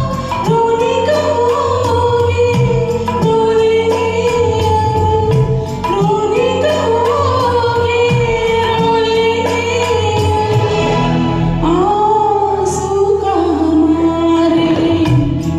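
A woman singing a Hindi film song over instrumental accompaniment with a steady beat, in a gliding, ornamented melody.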